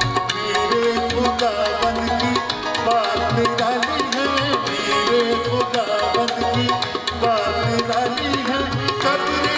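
Tabla playing a steady, fast rhythm under a harmonium and keyboard melody: live accompaniment to an Urdu Christian hymn.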